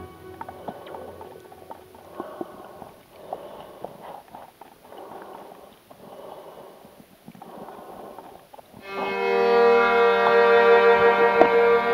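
Background music: a quiet stretch of soft swells about once a second with faint clicks, then a sustained bowed-string piece with violin comes in loudly near the end.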